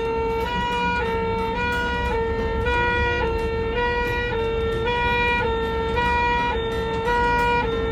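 Two-tone ambulance siren, a hi-lo wail switching between two pitches, each held about half a second.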